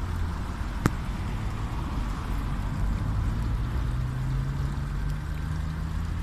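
Steady low rumble of road traffic with a vehicle engine humming, its note rising slightly over the last few seconds. A single sharp click sounds about a second in.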